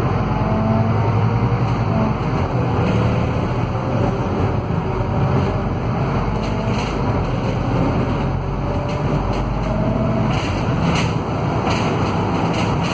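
Cabin sound of a Scania K320UA articulated bus under way: its five-cylinder Scania DC09 diesel running steadily, with road noise and a faint whine rising and falling from the hub-reduction rear axle. A few brief rattles come in the second half.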